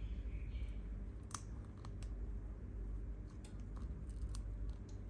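Scattered small clicks and scratches from a metal pry pick working along the edge of a Google Pixel 6 Pro, cutting through the adhesive that holds the screen to the mid-frame, over a low steady hum.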